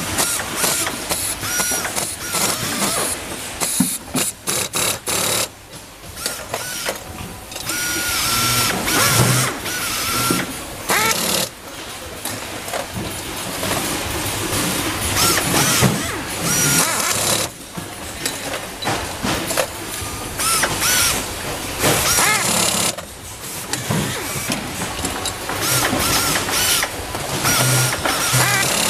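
Handheld power screwdrivers whirring in short repeated runs as screws are driven into steel concealed cabinet hinges, with metal parts clicking and clattering on a steel workbench.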